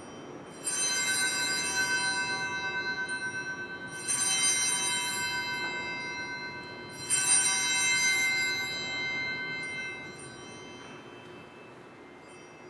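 Altar bell rung three times at the elevation of the consecrated host, each ring sounding as a bright, high-pitched chime that slowly fades before the next, the last dying away about ten seconds in.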